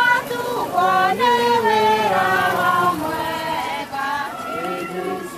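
Mourners singing together, women's voices strongest, unaccompanied, on long held notes that step from pitch to pitch.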